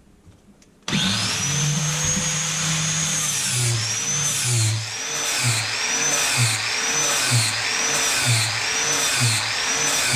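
Grinder with a 40-grit flap wheel switched on about a second in, its whine rising as it spins up, then grinding a lawn mower blade. The blade is passed across the wheel about once a second, the motor's pitch dipping under each pass.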